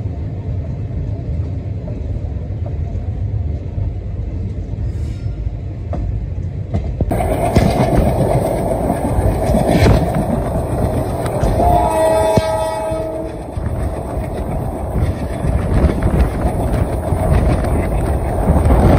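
Passenger train running, a steady rumble of coach wheels on the rails that gets louder after about seven seconds. The train's horn sounds once, for about a second and a half, around twelve seconds in.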